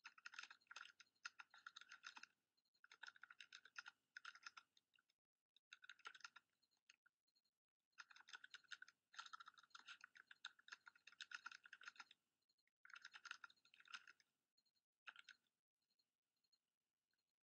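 Faint typing on a computer keyboard: runs of quick keystrokes broken by short pauses, tailing off near the end.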